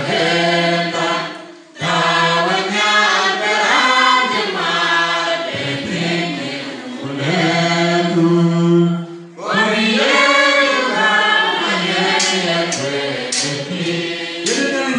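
A man singing a church song into a microphone, in long held notes, with short breaks about two seconds and nine and a half seconds in.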